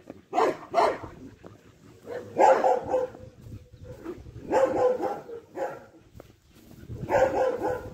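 Dogs barking in repeated bouts: two quick barks near the start, then longer runs of barking every two seconds or so.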